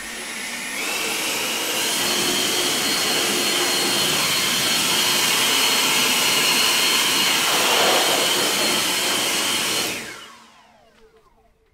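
Ego battery-powered leaf blower blowing out an engine bay: a steady rush of air with a whine. It builds up over the first couple of seconds, holds steady, then cuts off about ten seconds in and winds down.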